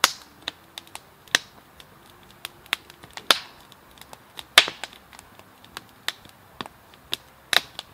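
Crackling of a wood campfire with bacon spitting in the frying pan over it: irregular sharp pops and cracks, two or three a second, the loudest about four and a half seconds in.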